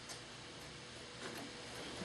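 Faint light ticks of an X-Acto hobby knife blade cutting across marks on the wood, over a low steady hiss.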